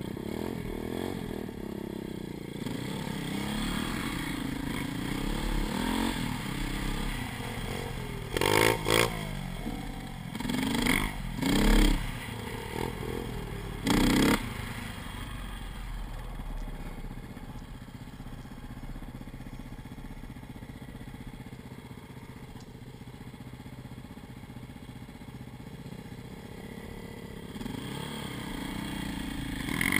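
Dirt bike engines running at low trail speed, the helmet-mounted camera's KTM loudest, with a pit bike alongside. The engine note rises and falls with the throttle, with a few short, loud revs between about 8 and 14 seconds in, then settles to a quieter steady running before picking up again near the end.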